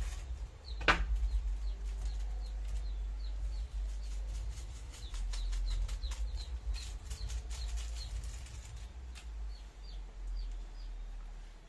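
Small birds chirping in short, repeated high chirps over a steady low rumble, with one sharp knock about a second in and a run of quick clicks in the middle.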